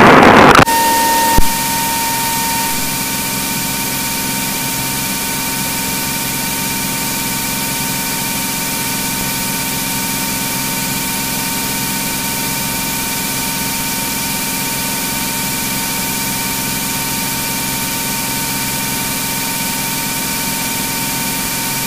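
Cirrus SR22's six-cylinder Continental engine and propeller in the climb, heard in the cockpit as a steady drone and hiss with a constant hum. A short click comes about a second in, as loud radio audio cuts off.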